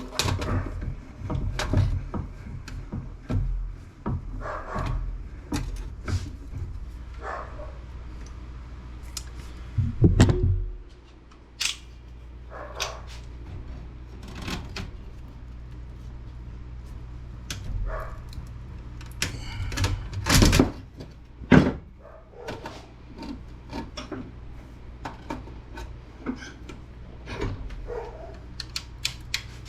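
Clicks, taps and knocks of hand tools working on the steel case of a Cisco ASA 5505 network appliance while it is being taken apart, with louder knocks about ten seconds in and around twenty seconds in, over a steady low hum.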